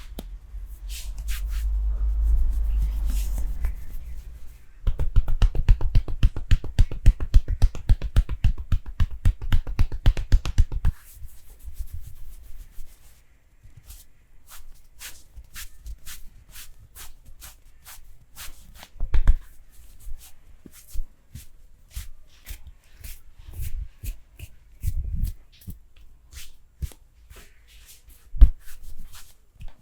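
Massage by hand: a brief rubbing, then a rapid even run of slapping strokes for about six seconds, then scattered finger snaps and taps with a few dull thumps.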